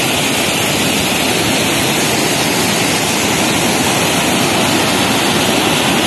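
Waterfall and the rapids below it rushing steadily: a loud, even hiss of falling and tumbling water with no break.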